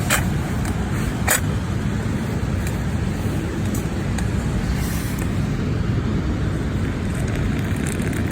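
Campfire burning with a steady low rumble, with two sharp crackling pops of burning wood in the first second and a half.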